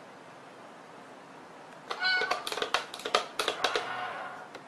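Cardboard-box cat coin-bank toy going off: a short meow about two seconds in, then a quick run of sharp mechanical clicks for about a second and a half as its lid pops open and the toy paw reaches out.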